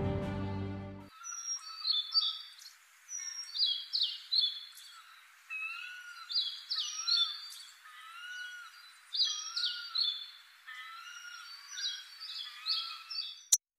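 Music cuts off about a second in, leaving a chorus of birds: many quick high chirps and twitters over a lower whistled call that rises and falls again and again. A single sharp click comes near the end.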